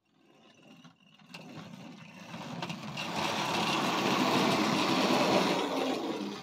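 Freshly serviced model railway Jinty tank locomotive running along the track with two wagons: the whirr of its small electric motor and the rattle of wheels on rail. It fades in over the first couple of seconds, runs steadily, then eases a little near the end.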